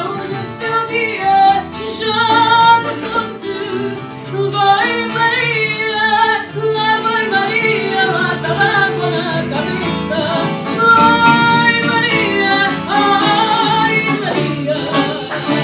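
A woman singing fado live, loud, with instrumental accompaniment. Her long sung notes waver with vibrato above a run of changing low notes.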